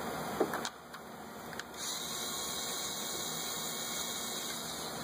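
Cordless electric ratchet whirring steadily for about three seconds, from about two seconds in, as it spins out an 8 mm ignition-coil bolt. A single click comes about half a second in.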